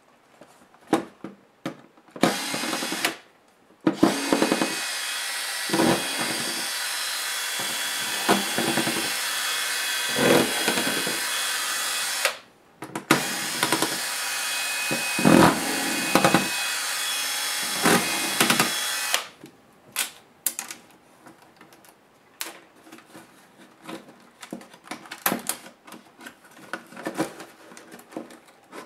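Cordless drill-driver running in bursts as it backs screws out of a laptop's plastic top case: a short run about two seconds in, then two long runs of several seconds each with a brief break between. Near the end, light clicks and taps of hands handling the plastic case.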